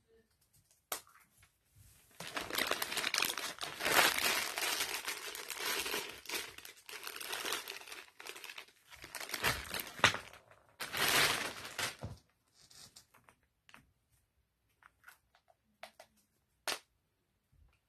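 Crinkling and rustling of wrapping or packaging being handled for about ten seconds, then a few scattered light clicks and taps.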